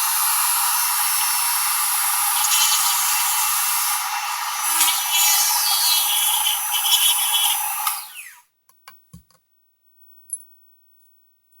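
Dremel rotary tool drilling a hole through a plastic cap with a worn diamond bit, running as a loud high-pitched whine. It winds up at the start and winds down to a stop about eight seconds in, followed by a few small clicks.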